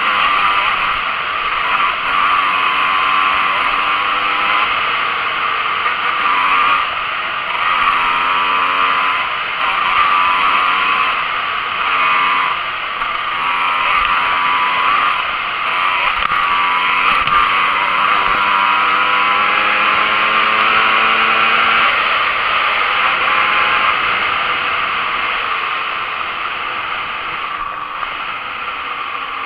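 Yamaha DT 125 R two-stroke single-cylinder engine with a Doma Racing aftermarket exhaust, accelerating hard through the gears: the pitch climbs again and again, dropping back at each upshift. In the last third it eases off and runs steadier and a little quieter.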